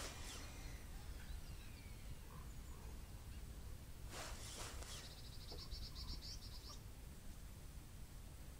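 Faint, steady low wind rumble across the microphone. About four seconds in comes a brief burst of hiss, then a small bird's quick, high trill lasting about a second and a half.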